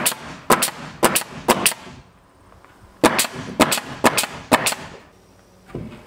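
Pneumatic nail gun firing nails through rough-sawn board siding into the framing: a quick run of about five sharp shots, a pause of about a second, then another run of about eight.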